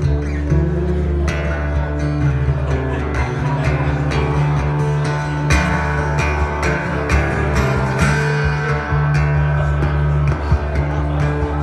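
Acoustic guitar played live, strummed chords mixed with picked notes in a steady rhythm.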